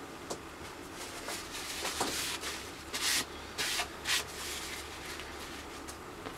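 Veg-tan leather being wetted: a run of short hissing, rubbing strokes, the loudest few about three to four seconds in, over a faint steady low hum.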